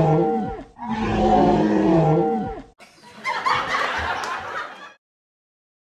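A lion roaring: two long, bending roars of about two seconds each, then a shorter, rougher grunting call that cuts off abruptly near the end.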